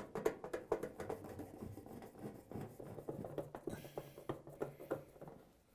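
Quarter-inch nut driver turning a screw into a dryer's sheet-metal lower front panel: a quick, irregular run of small scratchy clicks and ticks.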